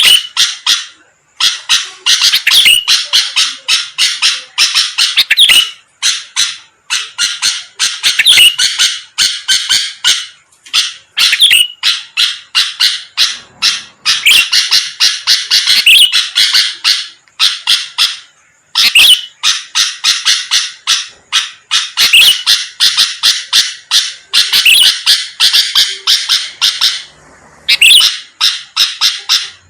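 Sooty-headed bulbul (kutilang) singing in full, vigorous song: loud bouts of rapid, chattering notes, each lasting a second to several seconds, with brief pauses between them.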